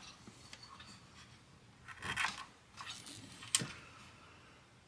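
Plastic-and-metal rubbing and scraping as a diagnostic cartridge is pushed into a Commodore 64's cartridge port, then a single sharp click about three and a half seconds in as the power switch is flipped on.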